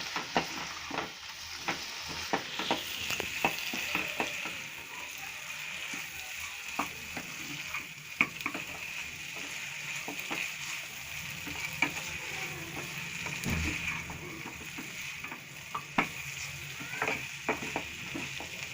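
Boiled chicken pieces frying in oil with onion, tomato, green chilli, capsicum and spice powders in a kadai, sizzling steadily while a spoon stirs and scrapes, with frequent sharp clicks of the spoon against the pan.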